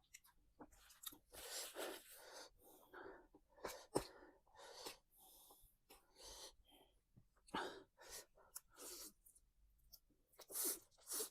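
Close-up eating sounds: bites and chewing of fried chicken and noodles in short, irregular bursts, with a sharp click about four seconds in.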